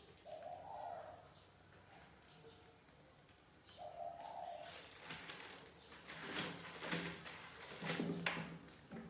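A pigeon or dove cooing twice, then a run of rustling and sharp knocks in the last few seconds, which are the loudest sounds.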